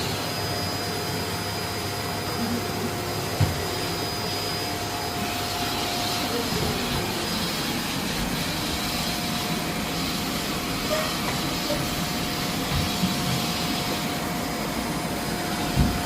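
Vacuum cleaner motor running steadily: a constant rushing noise with a fixed high whine held on top.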